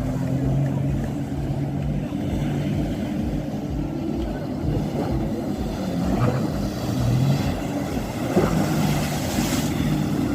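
Jet ski engine running steadily at speed, with a rush of wind and spray over it. A brief louder splash-like hiss comes near the end.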